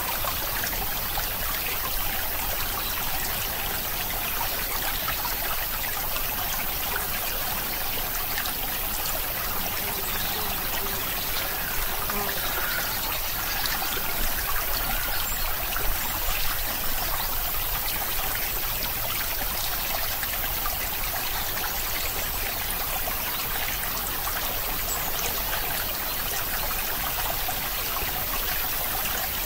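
Steady, even rushing noise like a trickling stream, unchanging throughout.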